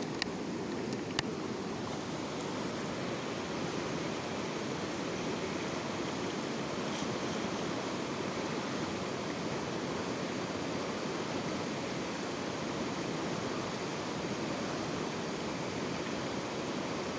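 A steady rushing outdoor noise, with two sharp clicks in the first second or so, the second one louder.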